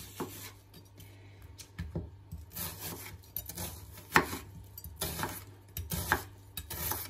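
Chef's knife slicing through a peeled onion on a wooden cutting board: rasping cuts through the onion layers, with the blade knocking on the board, the sharpest knocks about four and six seconds in.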